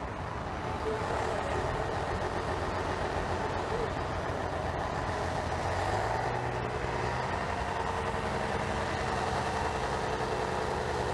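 Heavy vehicle engine idling steadily, with a lower engine tone joining about six seconds in.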